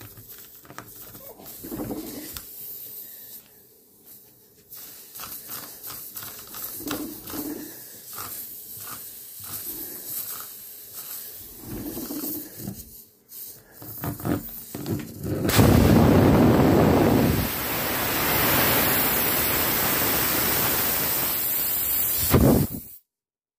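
A tyre-repair spiral reamer (rasp) scraping in and out of a puncture hole in a car tyre's tread, in repeated irregular strokes. About fifteen seconds in, a loud steady rushing hiss takes over and then cuts off suddenly near the end.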